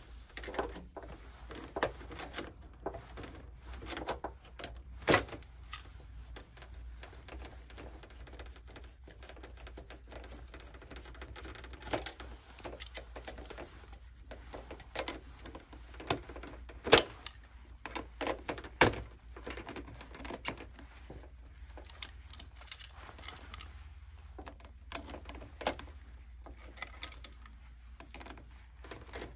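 Irregular clicks, taps and rattles of hands handling a black plastic shower-panel part and its wire connectors, with a few louder snaps, over a low steady hum.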